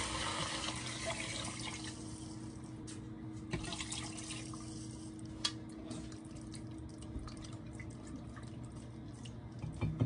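Water poured from a glass jug into a pot of chopped vegetables, splashing for about the first two seconds, then scattered small drips and clicks.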